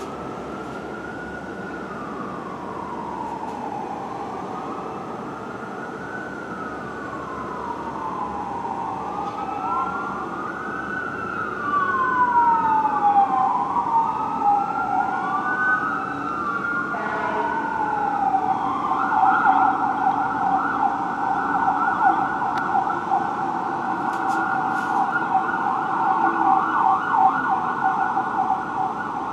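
Fire truck sirens wailing in slow rising and falling sweeps, with two sirens overlapping out of step. About two-thirds of the way through they switch to a fast yelp. The sound grows louder as the trucks approach.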